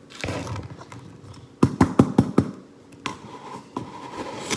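Kitchen handling noise while sugar is fetched for scooping: a brief rustle, then a quick run of about five light knocks and clatters.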